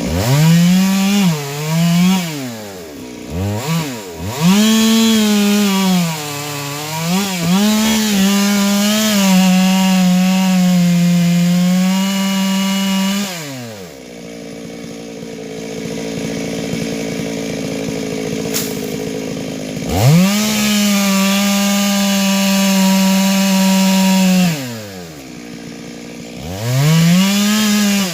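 Stihl MS 382 two-stroke chainsaw cutting through a tree at full throttle, its high engine note holding steady under load with brief dips and rises. Midway it drops back to idle for about six seconds, then runs up to full speed again, with a shorter drop to idle near the end.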